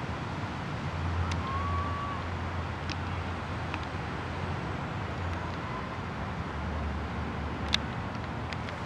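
Steady rumble of road traffic from a nearby highway. A brief faint high tone sounds about one and a half seconds in, and a sharp click comes near the end.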